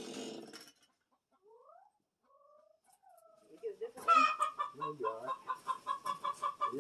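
A chainsaw stops within the first second. After a quiet stretch with a few faint calls, chickens start clucking about four seconds in, in a rapid run of several clucks a second.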